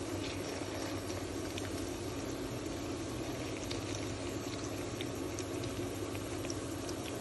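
Salmon patties frying in a pan: a steady sizzle with scattered small pops and spatters.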